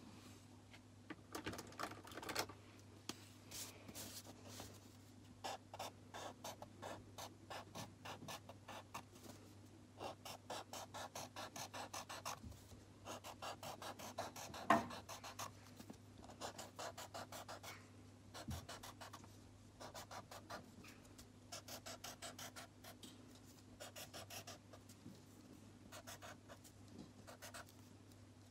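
Felt-tip marker scribbling on card, rapid back-and-forth strokes in runs with short pauses, as a small piece of card is coloured in. One sharper tap about halfway, over a faint steady hum.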